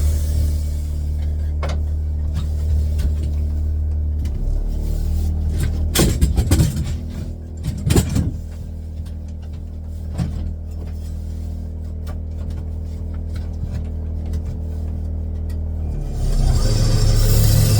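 A machine's motor runs with a steady low hum that eases about four seconds in. A few sharp knocks come around six, eight and ten seconds. The motor comes back louder and noisier about sixteen seconds in.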